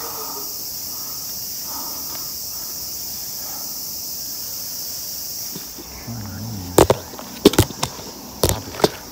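Steady high-pitched summer insect chorus. From about six seconds in, rubbing and about five sharp, loud knocks of the camera being handled.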